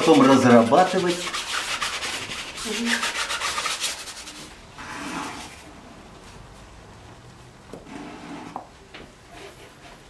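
Quick rubbing strokes of paint being worked onto a stretched canvas for about four seconds, then fading to faint scraping as paint is mixed on the palette.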